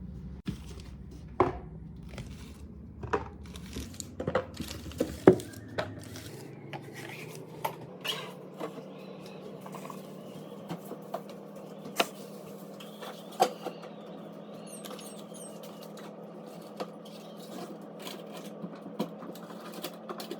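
Kitchen items and grocery containers being handled and set down: scattered knocks, clinks and clatters, busiest in the first few seconds and sparser after, over a steady low hum.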